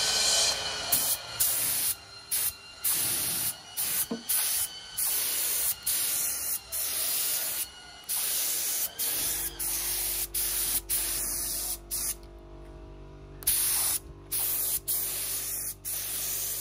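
Handheld paint sprayer hissing as it sprays paint in repeated bursts, starting and stopping every second or two as the trigger is pulled and released.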